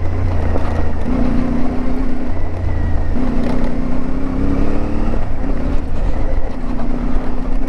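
CFMoto 450MT's 270-degree-crank parallel-twin engine running under way off-road, heard from the rider's seat. Its note shifts to a new steady pitch several times as engine speed rises and falls with the throttle.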